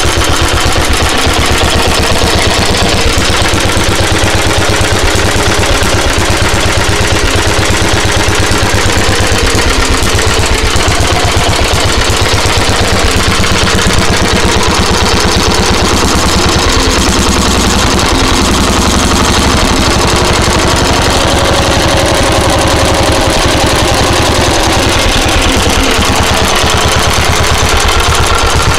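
Petter A1 single-cylinder, air-cooled petrol stationary engine running steadily, with a fast, even beat of firing strokes.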